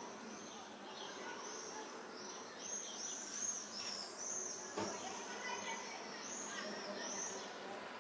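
Small birds chirping over and over, many short arching calls overlapping each other, with a single brief knock about five seconds in.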